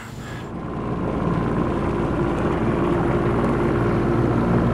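A 1954 wooden motorboat's engine running steadily underway, a constant hum that swells in during the first second and then holds level.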